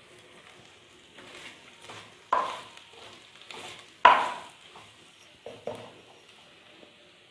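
Chopped bitter gourd being stir-fried in an earthenware clay pot: a spoon scrapes and knocks against the pot, with two sharp knocks about two and four seconds in, over a faint sizzle of hot oil.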